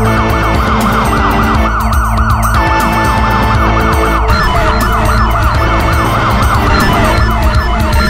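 A police-siren ringtone: a siren sweeping up and down quickly, about three times a second, layered over electronic music with a steady bass beat.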